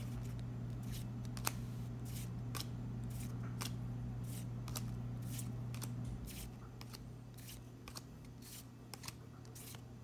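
Dragon Ball Super trading cards being flipped through one at a time, each card giving a short snap or swish as it is slid off the stack, about two a second. A steady low hum sits underneath and drops away about six seconds in.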